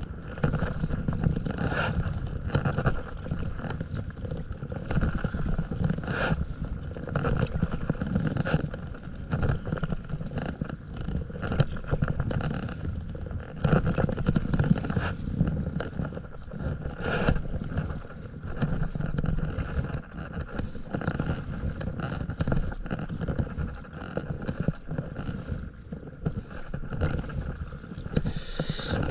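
Paddle strokes splashing and water washing along a stand-up paddleboard's hull as it moves across open sea, with wind buffeting the microphone. A brief brighter splash near the end.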